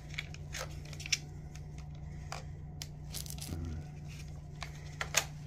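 Sharp plastic clicks and rattles as a Tacklife tire inflator's casing is handled and its 12 V cigarette-lighter plug and cord are worked out of the storage slot underneath, the loudest click about a second in and another near the end.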